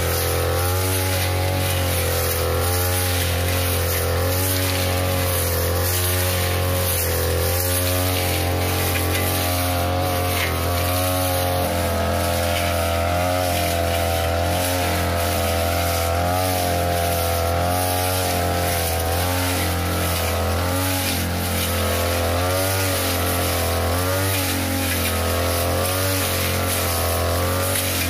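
Backpack brush cutter's 42cc two-stroke engine running at high speed, its pitch dipping and recovering every second or two as the sharp metal blade cuts through thick grass.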